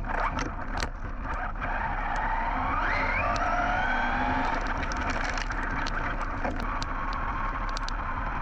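Team Associated Rival MT10 1/10-scale RC monster truck running on its brushless electric motor, the motor and drivetrain whine rising in pitch as it accelerates about three seconds in. Scattered sharp ticks and knocks run through it.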